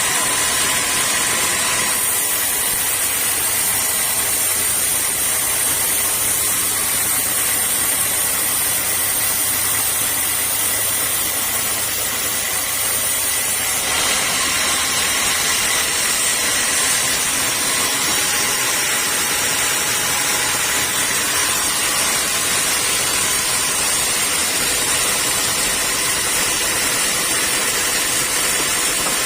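Sawmill saw machinery running steadily: a continuous high whine over a hiss, its texture shifting slightly about two seconds and fourteen seconds in.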